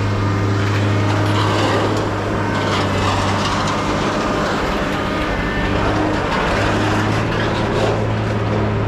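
An engine runs steadily, giving a constant low hum, with a few light knocks over it.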